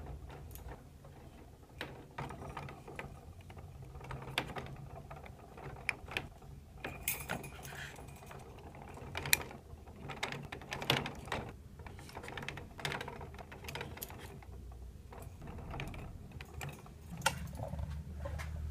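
Small homemade steel coil springs being fitted onto wooden disc hubs with needle-nose pliers: irregular light metallic clicks, clinks and handling rattles.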